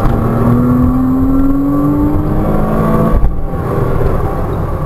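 Porsche Cayman 987.2's 2.9-litre flat-six heard from inside the cabin, revving up under hard acceleration in second gear. About three seconds in, the note breaks briefly for the upshift to third, then pulls on.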